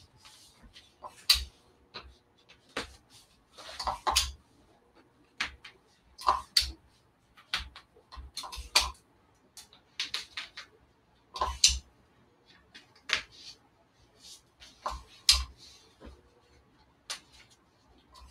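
Heat tape being torn off and pressed down by hand: irregular clicks and short crackly rips, a couple a second.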